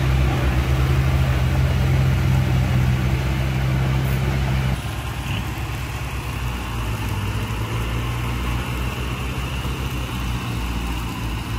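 Heavy diesel engine of earthmoving machinery running steadily. About a third of the way through, the sound drops suddenly to a quieter, lower engine note, which continues to the end.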